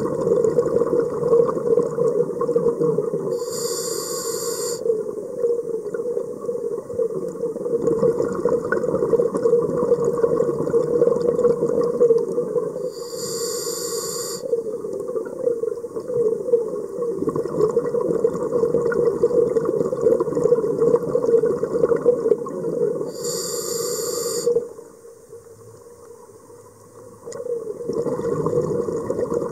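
Scuba diver breathing through a regulator, heard from inside an underwater camera housing: a steady rumbling hiss, broken three times, about ten seconds apart, by a short rush of exhaled bubbles, with a brief quieter spell near the end.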